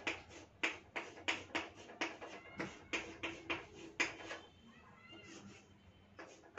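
Chalk writing on a chalkboard: a quick run of short scrapes and taps, about three a second, as letters and bonds are drawn, some strokes squeaking.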